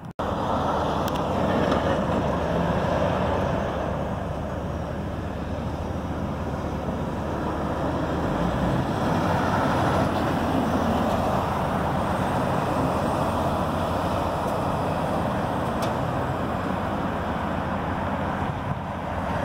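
Steady road traffic noise: vehicles passing with engine rumble and tyre noise, swelling slightly a couple of times.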